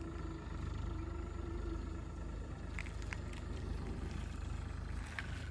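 Steady low background rumble with a faint steady hum, and a few short sharp clicks or chirps about three seconds in and again near the end.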